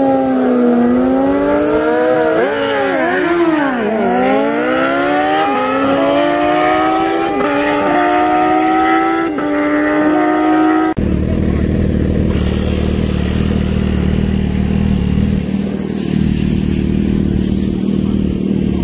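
Two sport motorcycles revving and launching, then pulling away hard through the gears; the engine pitch climbs and drops back at each upshift. About eleven seconds in, this cuts abruptly to motorcycle engines idling steadily.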